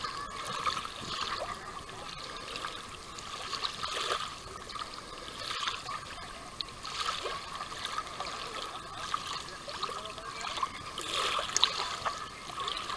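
Water trickling and lapping lightly, in small irregular surges every second or so.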